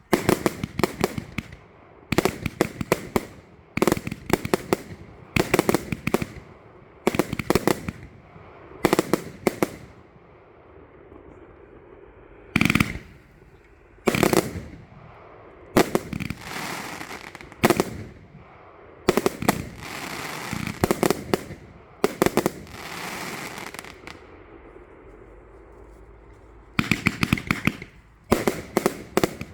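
J-Fireworks Miner A-B-C-D compound firework going off: clusters of rapid bangs about every second, some followed by crackling, with a pause of about three seconds near the end before the bangs start again.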